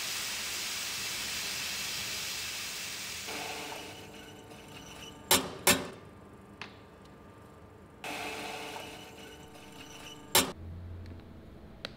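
Commercial coffee grinder running: a rush of grinding that thins to a steady motor hum, starting up again about eight seconds in. Sharp knocks and clicks come between, one as a glass is held to the grinder's chute.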